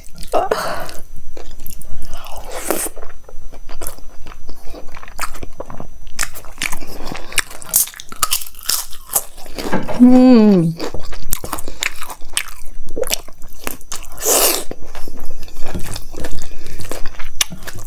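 Close-miked eating: crunchy bites of crisp papad and chewing, with many sharp crackling crunches. About ten seconds in, a pleased hummed 'mmm' slides down in pitch.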